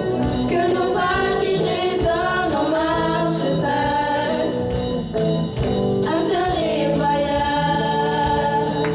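A group of teenage girls singing a song together into microphones, backed by a live band with electric guitars and drums.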